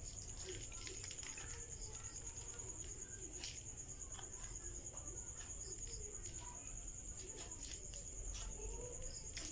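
A cricket trilling steadily on one high note, with faint scattered clicks and taps.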